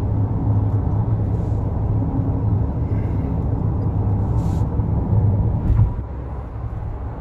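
Steady low rumble of engine and tyre noise inside a car's cabin at highway speed, getting a little quieter about six seconds in.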